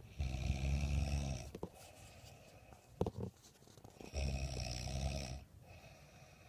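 A person snoring like a pig: two long snores about four seconds apart, each lasting a little over a second, with a short snort between them.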